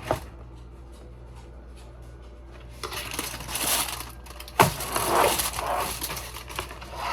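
Knife cutting food on a cutting board: bursts of rough scraping and crunching, with a sharp knock on the board about four and a half seconds in.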